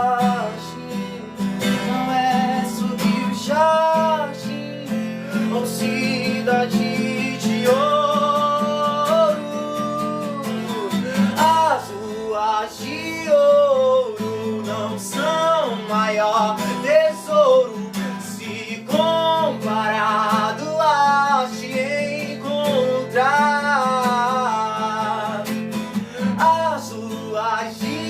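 An acoustic guitar strums chords under a solo voice singing a slow melody in phrases.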